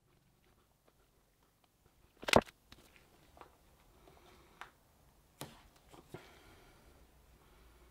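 Handling noise at a countertop: one sharp knock about two seconds in, then a few quieter clicks and taps as gloved hands work tape along the counter edge.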